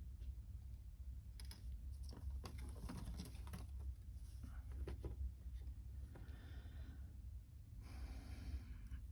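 Faint handling noises of fine jewellery wire and a bead being worked by hand: scattered light clicks and ticks in the first few seconds, then two short soft hisses near the end, over a steady low hum.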